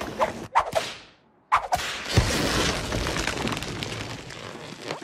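Cartoon sound effects: a swishing whoosh that fades out. About a second and a half in, a sudden loud impact comes, followed by a long rumbling crash.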